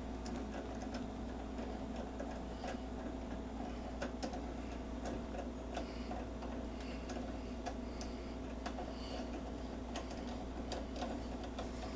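Socket ratchet clicking in irregular runs as it turns down the long screw that holds a washing machine agitator in place, over a steady low hum.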